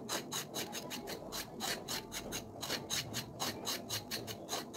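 A kitchen knife scraping the skin off a green vegetable in quick, even strokes, about five a second.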